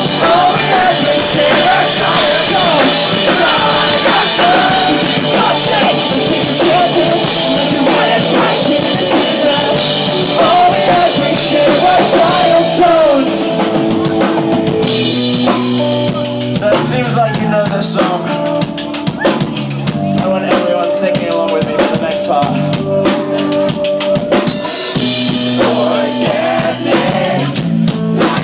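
Pop-punk band playing live, with drum kit, bass and electric guitars. About halfway through the high end thins out into a sparser, drum-led section, and the full band sound returns near the end.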